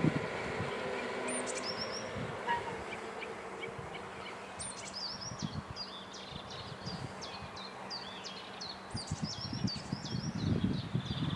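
Electric drive of a level-crossing barrier humming steadily as the booms swing up, with a knock just at the start; the hum fades out a few seconds before the end. A small songbird sings repeated high chirps over it, and a low rumble rises near the end.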